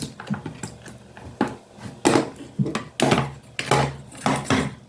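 A series of about seven irregular knocks as a washing machine's plastic lint filter is tapped against a hard surface to knock out the wet lint.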